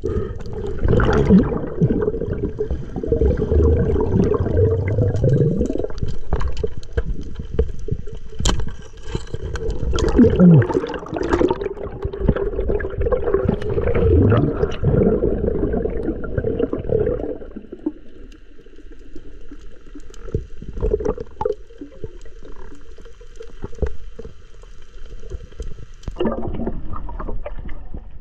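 Muffled underwater sound picked up by a submerged camera: water movement and bubbling gurgles over a low rumble, with a few low sliding tones. It grows quieter about two thirds of the way through.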